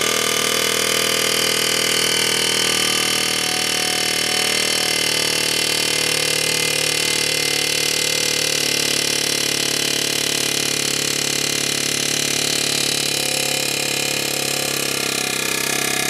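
Pneumatic air hammer running continuously, its bit angled into a notch cut in a stripped axle/CV bolt head to drive the bolt round and loosen it. The sound is a loud, steady buzz with no breaks.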